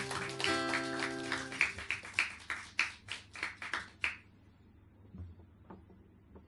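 Acoustic guitar chord ringing out, followed by a run of sharp, evenly spaced hits, about three a second, that stop suddenly about four seconds in. After that it is quiet apart from a few faint clicks.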